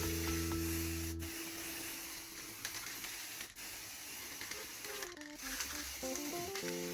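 Background melody that fades out about a second in and returns near the end, with a steady hissing, rubbing noise in between.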